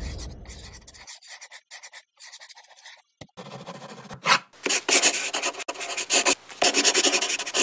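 Pen-on-paper writing sound effect: a run of short, irregular scratchy strokes, faint at first and louder and busier from about three seconds in.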